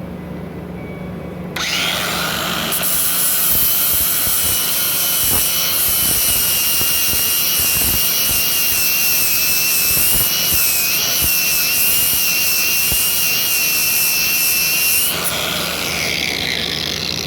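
Bauer 20V cordless 4.5-inch angle grinder switched on about a second and a half in. It runs for around thirteen seconds with a steady high whine over a loud hiss, the pitch dipping slightly partway through, then spins down near the end.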